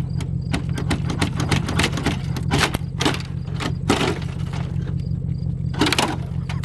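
A stuck car hood latch and hood being forced open by hand: a run of sharp metal clanks, cracks and scrapes, hardest about four seconds in and again near six seconds, over a steady low engine hum.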